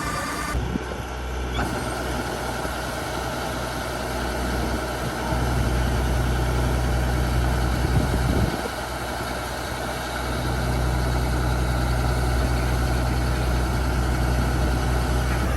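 Diesel engine of a Kubota rice combine harvester running steadily. Its low rumble gets louder about five seconds in, drops back briefly, then rises again and holds.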